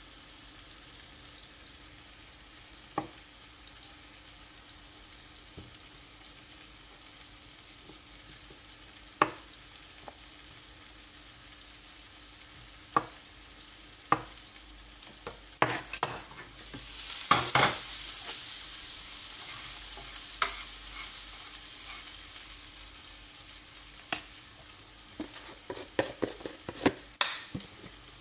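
Food frying in a pan over a gas flame: a steady sizzle broken by scattered clicks and knocks. About 17 s in the sizzle suddenly grows much louder, then slowly dies back down.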